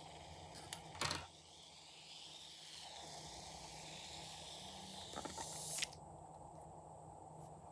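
Faint hissing and rustling of slime materials being handled, with a sharp knock about a second in and a louder scraping rustle near the middle-to-late part.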